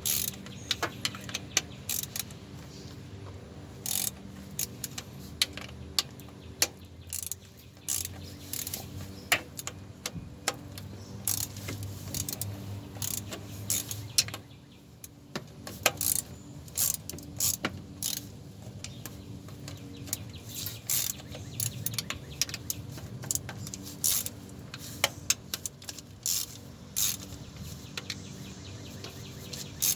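Socket ratchet clicking in quick, irregular runs as 10 mm transmission pan bolts are loosened, over a steady low hum.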